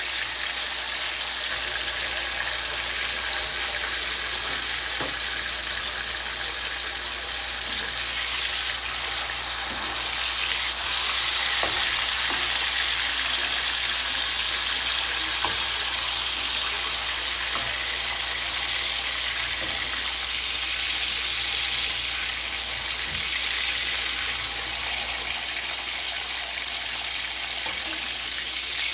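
Slices of sweet ham sizzling as they fry in hot oil in a pan, with a few light clicks from the metal tongs turning them. The sizzle grows louder about ten seconds in.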